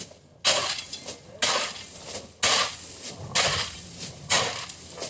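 A series of sharp impacts at a steady pace of about one a second, each followed by a brief crunching, scraping rush, like repeated strokes of a hand tool at work.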